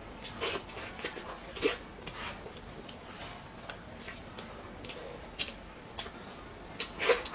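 Scattered short clicks and smacks of eating and handling food at a table: chewing and lip sounds while hands work steamed buns into a platter of noodles. The loudest come about a second and a half in and again near the end.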